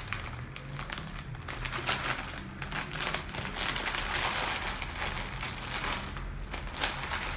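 Crinkly plastic snack bag of suflé puffs rustling and crackling as it is handled and reached into.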